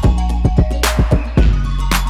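Background music with a steady drum beat over a bass line, a bright drum hit landing about once a second.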